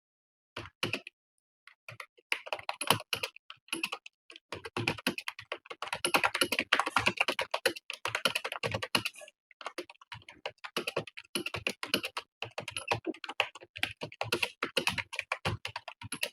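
Fast touch-typing on a computer keyboard, a rapid run of keystrokes. After a few isolated key presses at the start it becomes a continuous stream of clicks about two seconds in, with a brief pause near the middle.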